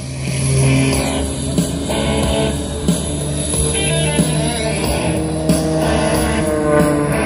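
Rock music with guitar and a drum beat.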